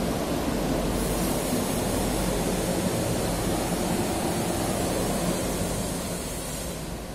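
A reverse-osmosis water plant running: the vertical multistage centrifugal pump's motor and the water pushed through it make a steady rushing hum with a low drone underneath, growing quieter near the end.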